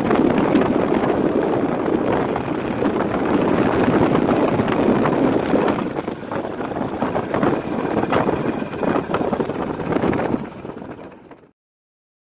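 Wind buffeting the microphone over the rush of a vehicle moving along a road. It fades out about eleven seconds in and then cuts to silence.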